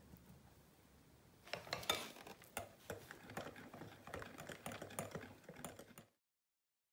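Rapid, irregular clicking and tapping against a glass mixing bowl as a hand mixer's beaters work flour into the batter. It starts about a second and a half in and cuts off abruptly near the end.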